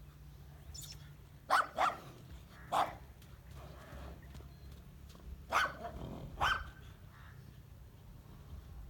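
A dog barking five times in short separate barks, two in quick succession and the rest spaced a second or more apart.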